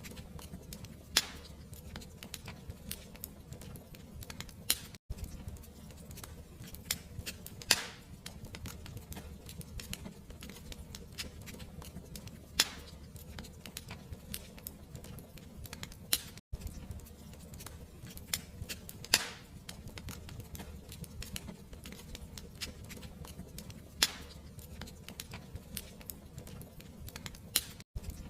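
Wood fire crackling in a fireplace: a steady low rumble with constant small crackles and a sharper pop every few seconds. The sound cuts out for an instant three times.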